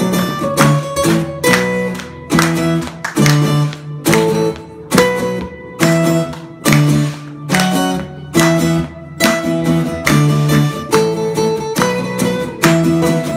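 Two acoustic guitars strummed together in an instrumental passage of a live duet, chords struck in a steady rhythm with accented strums a little under a second apart.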